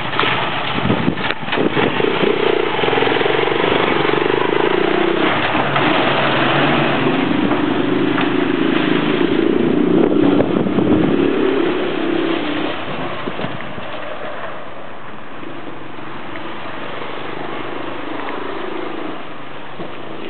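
The 250 cc ATV engine of a small home-built 'Farmer' vehicle running and being revved up and down repeatedly, with a few sharp knocks about a second in. From about fourteen seconds in it runs lower and steadier as the vehicle drives off.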